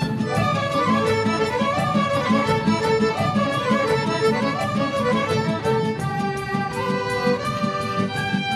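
Serbian folk dance music played live by a folk band, a violin carrying a quick, winding melody over a steady beat.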